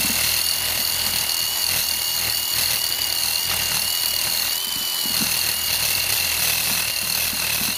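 Small abrasive wheel on a rotary power tool grinding the paint off the truck's sheet-metal body down to bare metal, to make a ground point for the amplifier. It runs with a steady high-pitched whine and cuts off right at the end.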